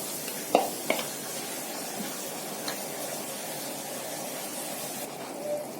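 Tomato-and-oil sauce sizzling in a pan on a gas burner, with a couple of sharp clinks about half a second and a second in as mussels go in. The hiss eases a little near the end.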